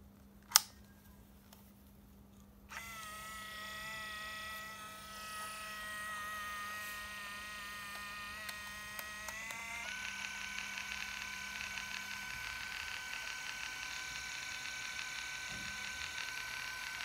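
A sharp click, then the Olympus Trip AF 51's built-in film-transport motor whirs steadily in a long run. About ten seconds in, the whine shifts to a higher pitch.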